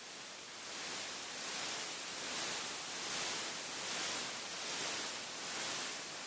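A steady hiss of noise, strongest in the high pitches, that fades in and swells and eases in a slow pulse about once a second.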